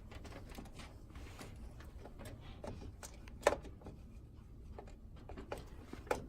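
Trident Z RGB memory stick being pressed into a motherboard DIMM slot: faint handling rustle, then one sharp click about three and a half seconds in as it snaps into place, with a smaller click near the end.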